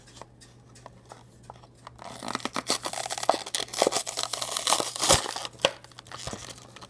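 A toy car's cardboard-and-plastic package being torn open, with the plastic crinkling. Faint clicks at first, then about two seconds in a run of tearing and crackling that ends in a couple of sharp snaps.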